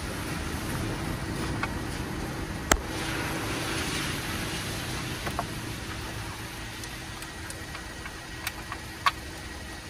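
Nissan Murano's V6 engine idling steadily, with a single sharp click a little under three seconds in.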